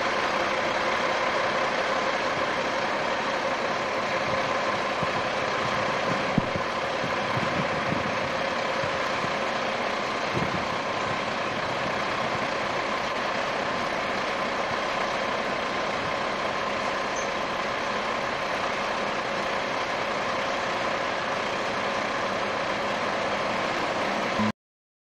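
Peterbilt semi truck's diesel engine running steadily at idle as the rig creeps forward, under a constant hiss, with a sharp click about six seconds in. The sound drops out briefly just before the end.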